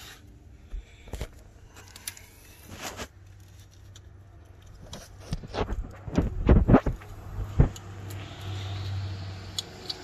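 Hands working a wiring-harness connector under a car, trying to push it home, and it will not click into place: scattered knocks, rattles and scrapes of plastic and metal, loudest in a cluster of knocks about six to eight seconds in, over a steady low hum.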